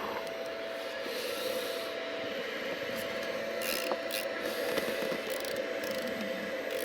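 Scraping and rubbing of a tool cleaning hardened glue out of a hole in a plastic seat trim panel, with a few small clicks.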